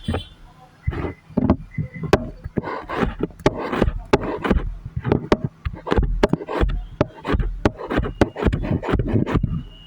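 A rapid, irregular series of sharp knocks and clacks, several a second.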